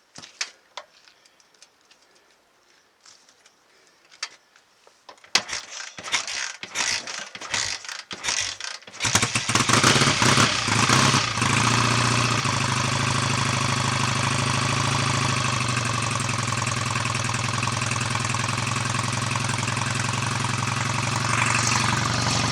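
BSA A65 Lightning 650 cc parallel-twin engine being kicked over with a few mechanical clatters, catching about nine seconds in, picking up briefly, then running steadily. This is the freshly rebuilt engine, and the ignition timing is still a bit retarded, in the owner's judgement.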